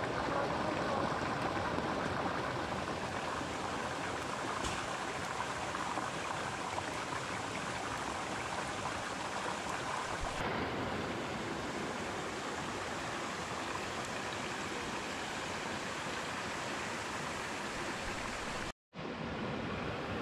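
Shallow rocky stream running steadily over stones, an even rushing of water. It cuts out for a moment near the end.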